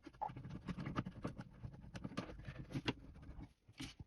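Hand screwdriver driving the fixing screws of a wall-socket faceplate into the back box: many small irregular clicks and scrapes of metal on screw heads and plastic, with a brief pause about three and a half seconds in.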